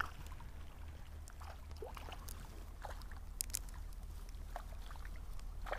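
Steady low rush of stream water with scattered small splashes and rustles, as a caught grayling is held in the water and released.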